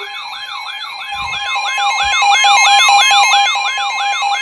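Emergency alert tones: the steady two-tone attention signal with a rising, warbling siren sweep laid over it, repeating about three times a second. It gets louder about a second in.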